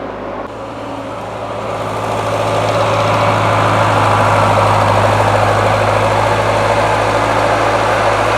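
An engine running steadily, growing louder over the first three seconds and then holding level.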